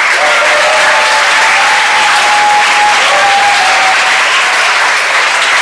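Audience applauding and cheering, with a few long whoops over the clapping in the first four seconds.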